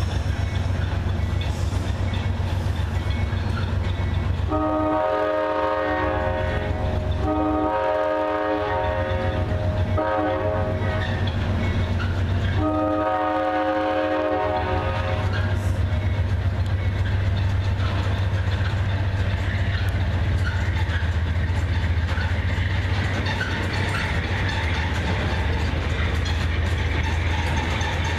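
A multi-chime diesel locomotive horn sounds the grade-crossing pattern, long, long, short, long, over the steady low hum of an idling train.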